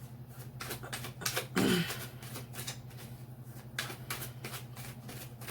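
Tarot cards being shuffled by hand: a run of quick card snaps and flicks, over a steady low hum.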